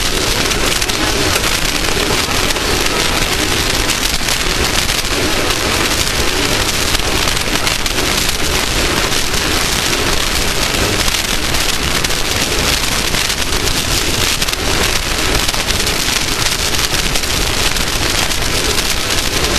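Loud, steady rushing noise of an off-road race vehicle at speed on dirt: a dense wash of wind and dirt noise with no clear engine note.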